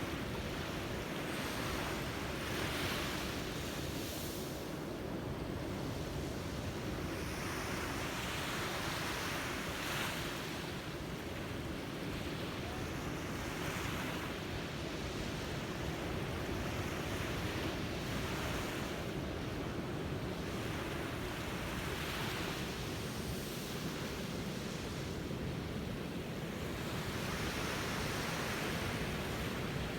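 Sea waves breaking on a beach. The wash of each wave swells and fades every few seconds over a steady low rumble of surf.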